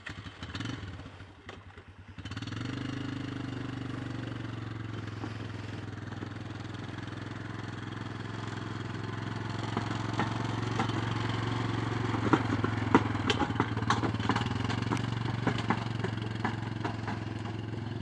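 Small engines of a quad bike and its towed manure vacuum running, uneven at first and steady from about two seconds in. Irregular clattering knocks join from about ten seconds in.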